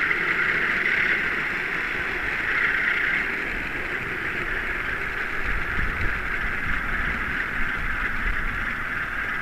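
Steady rolling noise from the small wheels of a 4-wheel OO gauge model wagon running on the track, a high rushing rattle, with a few low knocks in the second half.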